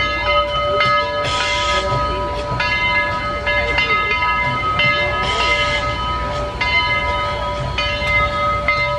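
A bell ringing with repeated strokes, roughly once a second, its ringing tones held between strokes, over the steady low rumble of a moving train.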